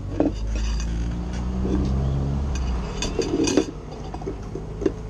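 Spoon and ceramic bowls clinking on a table in short scattered clicks, with a small cluster of clinks about three and a half seconds in. A low steady engine hum runs under the first three seconds or so, then fades.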